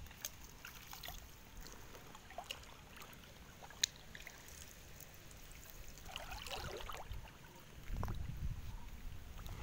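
Water splashing and trickling as a person works a fishing net with his hands while standing waist-deep in a canal. There is a single sharp click about four seconds in, and heavier low sloshing from about eight seconds as he wades through the water.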